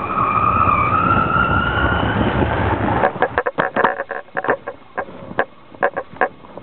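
Wind rushing over a camera carried up a power-kite line, with a whistling tone that rises slightly. About three seconds in, the wind noise drops away and a run of irregular sharp clicks and knocks takes over.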